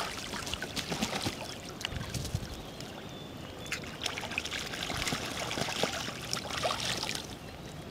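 Geese bathing in shallow river water: irregular splashing and dripping as they dip, shake and beat their wings on the surface.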